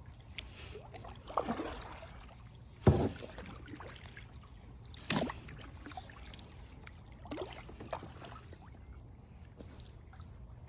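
Kayak paddle strokes in the water: four splashes roughly two seconds apart. The loudest, about three seconds in, comes with a thump.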